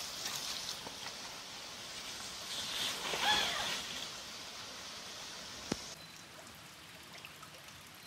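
Shallow stream water running over a gravel road, swelling about three seconds in as a bicycle rides through it. A single sharp click near six seconds, after which the water sound drops to a quieter outdoor hush.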